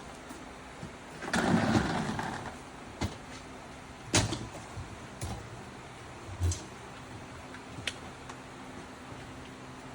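Handling noises: a rustling scrape about a second in, then several separate sharp clicks and knocks, over a faint steady low hum.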